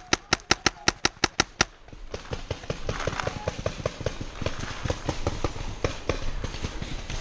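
Paintball marker firing a rapid, evenly spaced string of about nine shots, roughly five a second, stopping just before the two-second mark. After that come fainter, irregular clicks and pops.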